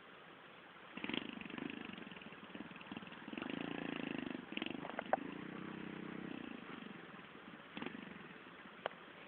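A small motorcycle engine running close by. It starts about a second in, swells twice, then fades toward the end, with a few sharp clicks along the way.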